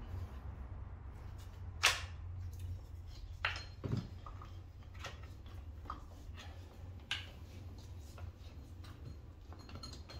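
Sharp clicks and clinks of hand tools and engine parts as the timing belt is released from its tensioner and pulled off a VW 2.0 TDI common-rail diesel engine, the loudest about two seconds in and a few more through the rest, over a low steady hum.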